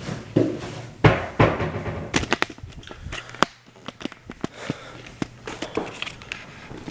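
Irregular knocks, clicks and rattles of objects being handled and set down, with two heavier thumps about a second in and a quick run of clicks a little later.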